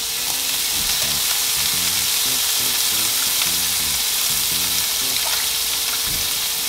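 Shredded salt cod frying in oil in a nonstick pan: a steady sizzle.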